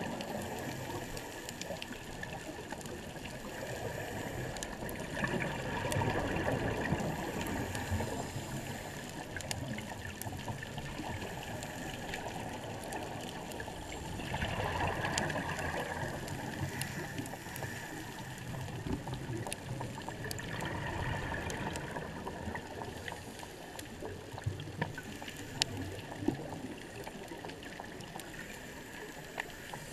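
Underwater sound of a scuba diver's breathing: exhaled bubbles gurgling out of the regulator in surges every several seconds. A few sharp clicks come near the end.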